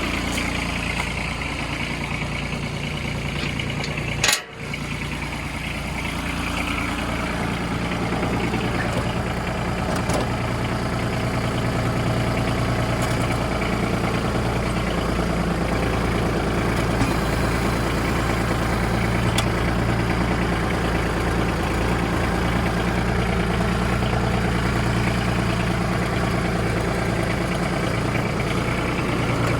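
Tractor engine running steadily, with a short sharp break about four seconds in and slightly louder after that.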